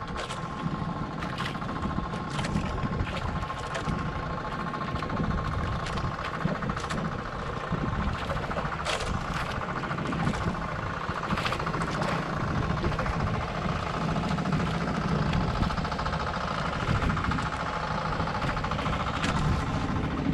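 A boat engine running steadily at idle, with occasional short sharp clicks or knocks.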